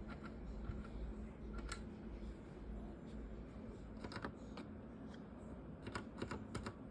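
Faint scattered clicks, a few early on, then a cluster about four seconds in and another near the end, over a low steady hum.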